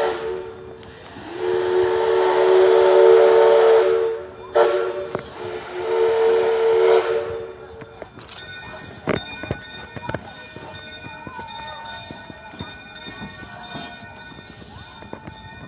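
Two-foot-gauge steam locomotive No. 6 blowing its two-note steam whistle: the tail of one long blast, then a long blast, a short one and a final long one, the long-long-short-long pattern of a crossing signal. From about 8 s in, the whistle stops and the receding train is heard only faintly as scattered clicks and thin squeals.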